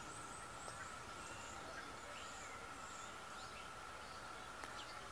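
Faint outdoor ambience: small birds chirping sparsely in the background over a steady hiss, with a thin steady high whine.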